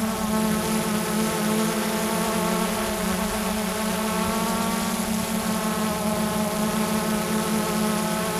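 Xiaomi Mi Drone quadcopter's motors and propellers buzzing steadily in flight, an insect-like whine whose pitch wavers only slightly.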